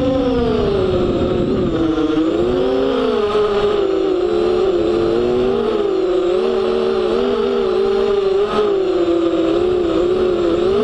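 FPV quadcopter's electric motors and propellers whining, heard from the camera on board. The pitch rises and falls continually as the throttle changes in flight, dipping lowest about two seconds in and again near the end.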